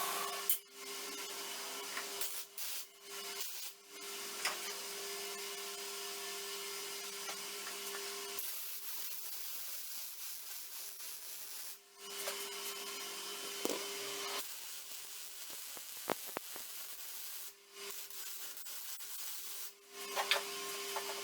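A small electric power tool running steadily with a hissing abrasive sound, as in sanding or grinding metal. It is cut into several short stretches with brief breaks between them.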